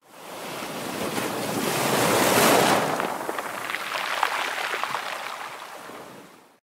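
Rushing water that swells to a peak about two and a half seconds in, then breaks into splashing and dripping before fading out.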